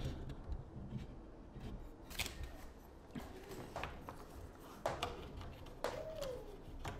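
Faint scattered clicks and light scraping as a door hinge on an interior door is adjusted by hand.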